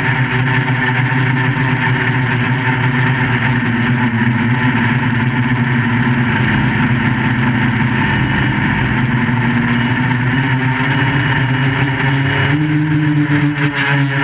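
QAV400 quadcopter's motors and propellers buzzing steadily in flight, the pitch drifting a little with throttle and stepping up briefly about 12 seconds in.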